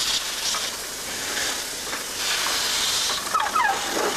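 Steam hissing from Isle of Man Railway No. 4 Loch, a Beyer, Peacock 2-4-0 tank engine, in two long bursts as it stands and moves off with its cylinder drain cocks open. A few short high falling calls come near the end.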